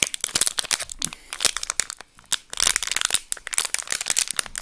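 Plastic wrapper of a baseball card pack being crinkled and torn open: a dense run of crackles with a short lull about two seconds in.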